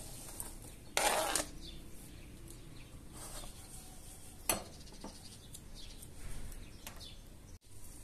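Sliced bell peppers tipped into a hot oiled frying pan, with a loud half-second burst of noise about a second in as they land, then soft sizzling. A sharp knock comes about halfway through as the peppers are moved around the pan, with a few lighter clicks.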